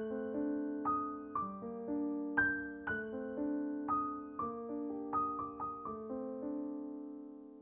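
Gentle solo piano background music: single notes and chords struck about twice a second and left to ring and fade, the last one dying away near the end.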